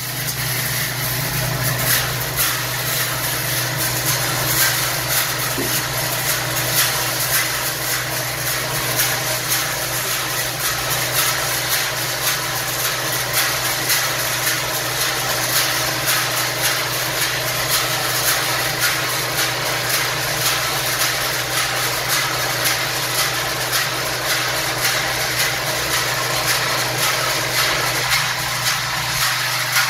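Özstar OS-100 guided roasting machine running: a steady low hum from its drive while the drum turns, over a dense rattling of the load tumbling over the drum's guide vanes, with a small regular pulse.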